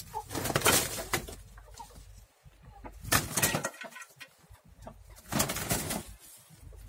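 Roosters fighting, their wings beating hard in three bursts of flapping about two seconds apart, each lasting up to a second, as they leap at one another.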